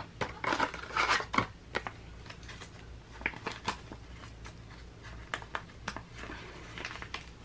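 Clear plastic binder pocket pages rustling and crinkling as photocards are slid into the sleeves, with a few short light clicks and taps.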